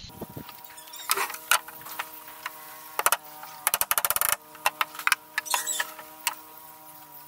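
Claw hammer striking nails into a wooden deck plank: scattered single knocks, with a quick run of light taps about four seconds in, over a faint steady hum.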